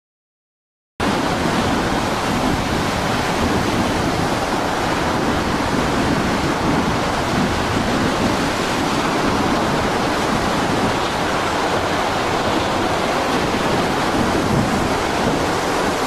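Silent for about a second, then a loud, steady roar of storm wind and heavy seas breaking over and around a small fishing boat.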